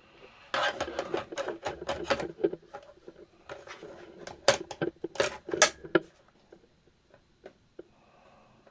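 Small tools and parts being handled on an electronics repair bench: a run of quick clicks and clattering rattles for about five seconds, then a few sparse taps.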